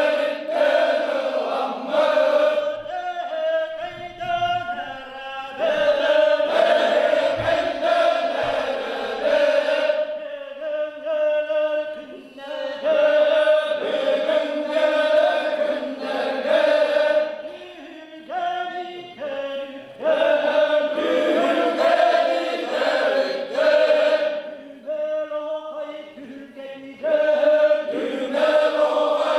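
Yakut osuokhai circle-dance song sung by men: a lead singer calls out a line alone and the group answers in unison chorus, the two alternating every few seconds.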